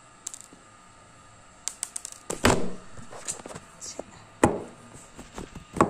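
Close handling noise as the recording phone is picked up: a run of clicks and rubbing knocks, with two loud thumps about two and a half and four and a half seconds in.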